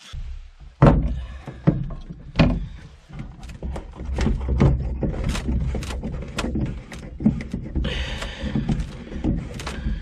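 Knocks and thumps on a canoe hull close by, with clicks and rustling, as the boat and its wooden carrying yoke are handled. Two heavy thuds come about a second in and again about two and a half seconds in.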